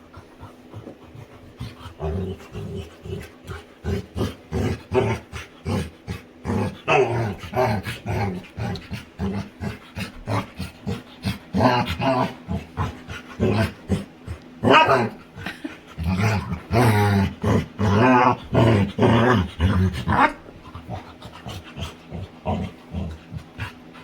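A Labrador retriever vocalizing while playing: a long run of short, pitched grumbles and whines that rise and fall in pitch. It stops a few seconds before the end.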